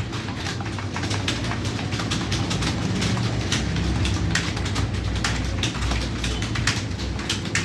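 Computer keyboard keys clacking quickly and irregularly, several typists at once during a timed typing test, over a steady low rumble.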